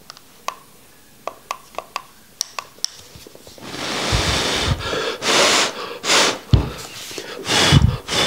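A few light clicks from a vape box mod being handled, then a person blowing out vapor: one long breathy exhale about three and a half seconds in, followed by several shorter puffs.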